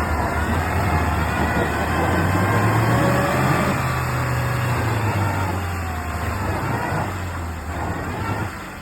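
Niva off-roader's engine revving under heavy load while dug in in mud, the pitch rising and falling. The engine eases off near the end.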